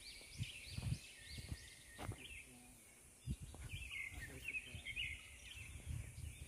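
Small birds chirping in quick runs of short rising-and-falling notes over a steady high insect buzz, with soft footsteps on a paved path underneath.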